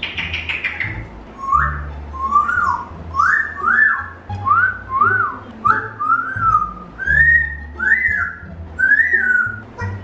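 African grey parrot whistling a run of about ten short notes, each sliding up and back down, with background music underneath.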